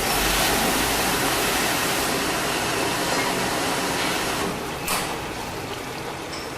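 Vial washing machine's spray jets running, a steady rushing water hiss that eases a little after about four and a half seconds, with a short burst of spray near five seconds.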